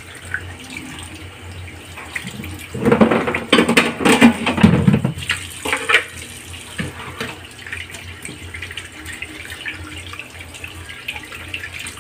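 Kitchen tap running into a stainless steel sink while a whole raw chicken is rinsed under the stream. There is a louder stretch of splashing and knocking from about three to five seconds in.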